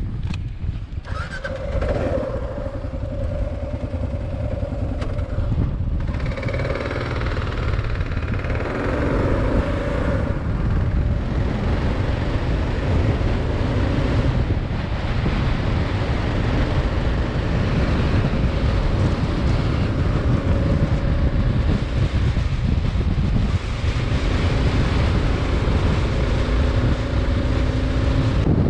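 Kawasaki KLR 650 single-cylinder engine pulling away from a stop and accelerating up through the gears with brief breaks at the shifts, then running steadily at road speed. Wind rushes over the microphone.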